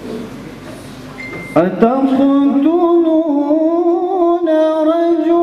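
Male voice chanting Quranic recitation (tilawat). About a second and a half in, after a moment of hall room tone, it starts one long held note that wavers slightly in pitch.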